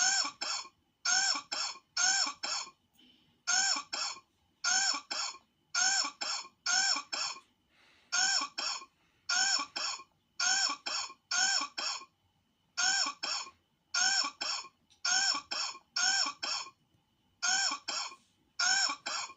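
A short cough sound looped over and over: quick double coughs about once a second, each one identical, with a few brief gaps in the rhythm.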